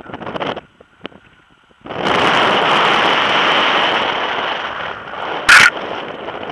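Wind rushing over the camera microphone of a paraglider in flight: a few short gusts, then from about two seconds in a loud steady rush that slowly eases, with one brief sharp blast near the end.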